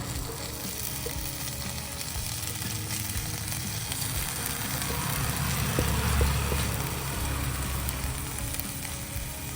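Basmati rice, green chillies and whole spices sizzling steadily in hot butter and ghee in a pot, with a few faint taps.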